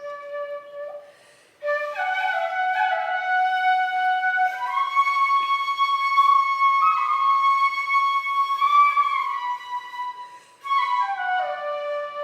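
Shinobue, the Japanese bamboo transverse flute, playing a solo melody in long held notes. It breaks briefly twice for breath, once about a second and a half in and once near the end, and climbs higher in the middle.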